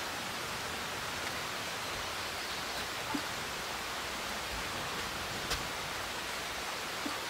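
Steady outdoor forest ambience: an even rushing noise with a few faint clicks scattered through it.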